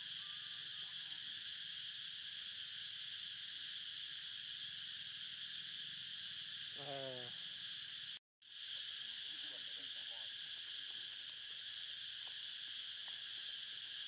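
Steady high drone of a forest insect chorus, with a short animal call about seven seconds in and a few fainter calls a couple of seconds later. The sound cuts out for a split second just after eight seconds.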